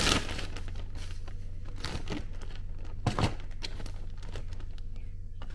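Food being served onto a paper plate: crinkling of packaging and scattered light clicks and scrapes of utensils, the loudest right at the start and about three seconds in. A low steady hum runs underneath.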